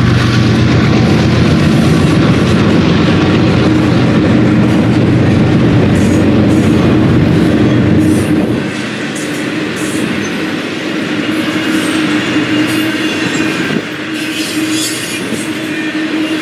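Double-stack intermodal train's container well cars rolling past, a steady rumble and clatter of steel wheels on rail with brief high wheel squeals. The noise drops a step about halfway through.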